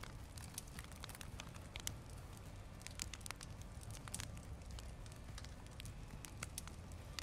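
Wood campfire crackling, with sparse, irregular sharp pops and snaps over a faint low rumble.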